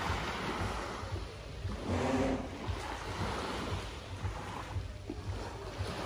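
Small waves of a calm sea washing on a pebble shore, with wind rumbling on the microphone.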